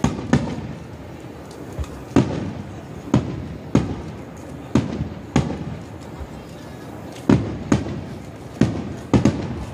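Aerial firework shells of a star mine barrage bursting, about a dozen sharp bangs at irregular intervals of under a second to two seconds, each trailed by a rolling echo.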